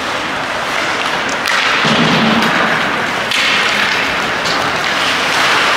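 Ice hockey play on a rink: a steady wash of scraping skates that swells a few times, with a few sharp knocks of sticks and puck.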